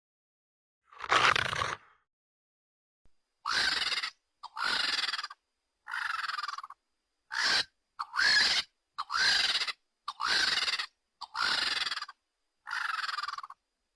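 Designed creature sound effects for a Dromaeosaurus, a raptor dinosaur, played as separate calls. One loud call comes about a second in, then nine short calls follow about a second apart, each with a pitch that rises and then falls, with silence between them.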